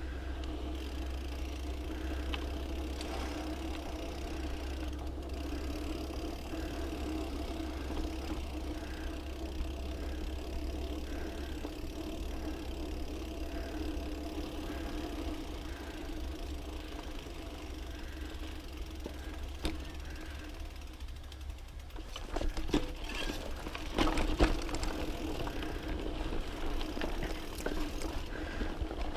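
Specialized Camber Comp 650b mountain bike rolling along a dirt trail: a steady rumble of tyres and ride noise with faint regular ticking. From about 22 to 25 seconds in, sharp knocks and rattles come as the bike runs over rougher, rocky ground.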